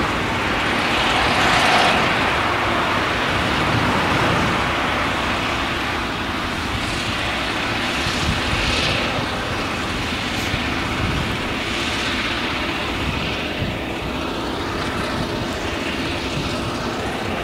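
Claas Jaguar 970 forage harvester's MAN V8 engine running steadily under load while chopping maize, with the rushing of chopped crop blown from the spout. The noise swells a little about a second in.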